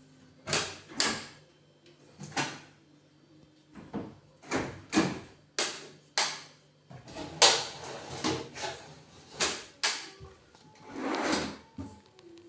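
Aluminium kitchen-cabinet doors and drawers being opened and shut one after another: a string of sharp clacks and knocks, several in quick pairs. A longer sliding rasp comes near the end.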